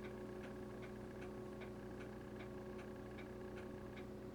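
Faint, regular ticking at about two and a half ticks a second over a steady low electrical hum.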